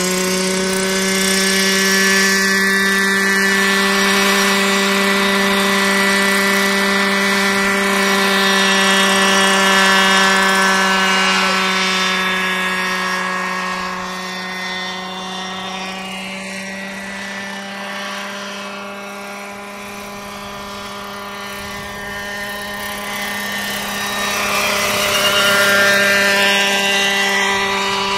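Radio-controlled scale model helicopter, a Robinson R22 replica, running with a steady high-pitched whine of rotor and drive. The pitch rises slightly in the first second as the rotor comes up to speed, then holds; the sound fades somewhat in the middle and grows louder again near the end as the model flies away and back.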